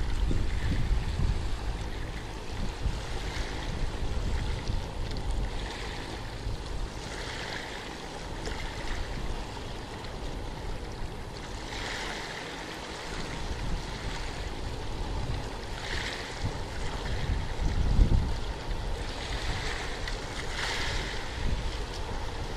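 Small sea waves washing onto the shore, swelling and fading every few seconds, with wind gusting on the microphone, strongest near the start and again about three-quarters of the way through.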